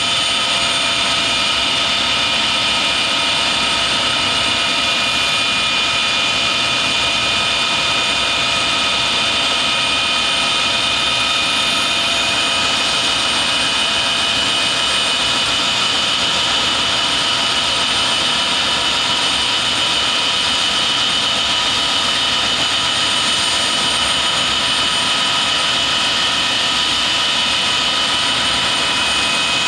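Avro Vulcan bomber's Rolls-Royce Olympus turbojets running: a loud, steady jet noise with whining tones at several pitches. A very high whistle rises in pitch through the first half and then holds.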